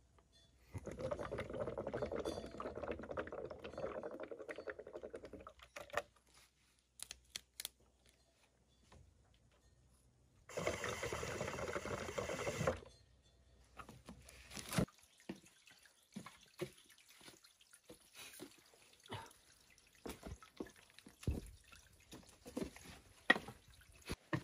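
Bamboo water pipe (điếu cày) bubbling as smoke is drawn through its water: one long draw of about five seconds, then a second, shorter draw about ten seconds in. After that come scattered small clicks and rustles.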